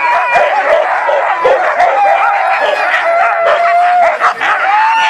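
A pack of harnessed Siberian huskies barking, yelping and howling all at once, the excited din of sled dogs eager to start their run. About three seconds in, one dog holds a long howl.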